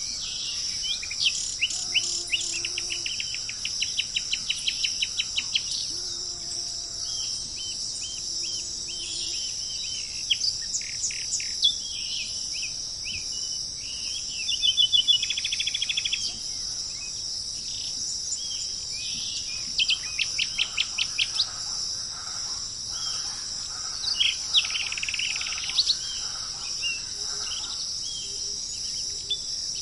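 Several birds calling, with fast runs of repeated notes and short trills coming and going, over a steady high-pitched drone of insects.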